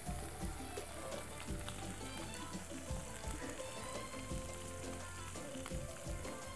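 Cooked muhammar rice being tipped from a large steel pot into another pot: a continuous crackling patter of grains sliding and dropping, over background music.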